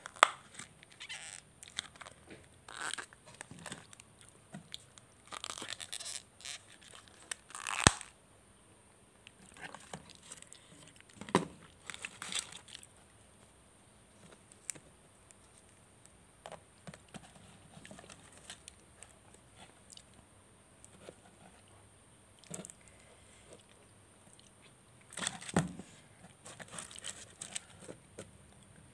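Crispy fried chicken coating crunching and crackling as the pieces are pulled apart by hand, with scattered sharp clicks and rustles from the cardboard box. A plastic lid gives a sharp click right at the start.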